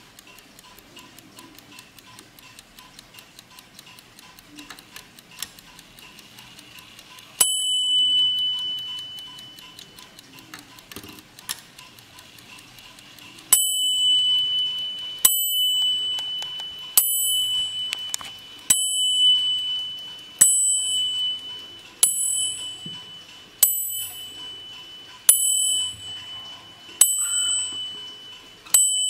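Mantel clock's Hollandia movement ticking steadily, then its animated knight figure strikes the brass bell once. About six seconds later it strikes the hour with ten evenly spaced blows, roughly one every 1.7 seconds, each note ringing on and fading.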